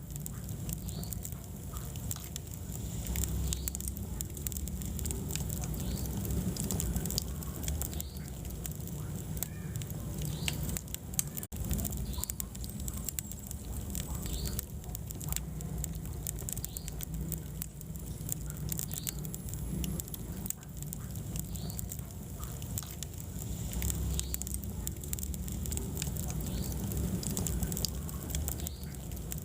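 Wood fire burning in a fireplace: frequent small crackles and pops over a steady low rumble of flames, with a brief gap about eleven seconds in.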